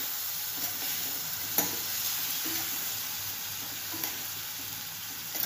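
Spiced mustard-oil gravy sizzling in a stainless steel kadhai as a metal spoon stirs whole pointed gourds through it, with a sharp knock of the spoon against the pan about a second and a half in and lighter taps later.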